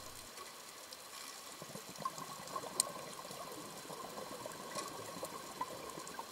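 A few faint, separate clicks from the control dial of an underwater camera housing being turned to change the shutter speed, over a low steady hiss with a thin faint whine.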